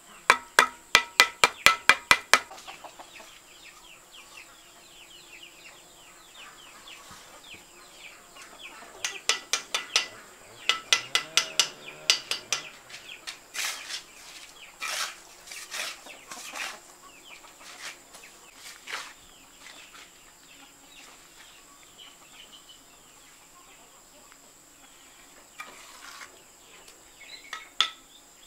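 Steel bricklaying trowel tapping clay bricks down into cement mortar: quick runs of sharp clicks at the start and again about ten seconds in, then scattered single knocks. A chicken calls once near the middle.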